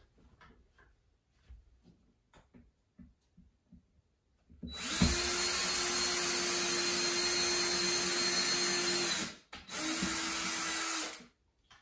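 Cordless drill boring a pilot hole into wooden window trim: one steady run of about four and a half seconds at a constant pitch, a brief stop, then a shorter burst of about a second and a half. Faint handling clicks come before it.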